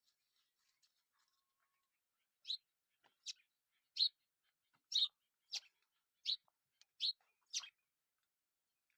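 A small bird perched in a tree chirping: a run of about eight short, sharp, high chirps, evenly spaced a little under a second apart, starting a couple of seconds in.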